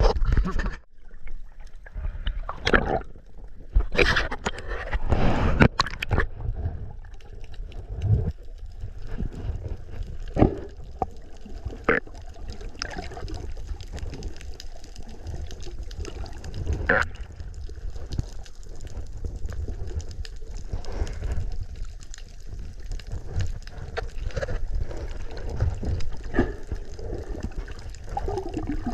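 Water sloshing and gurgling, with a steady low rumble and scattered knocks and clicks, busiest in the first few seconds.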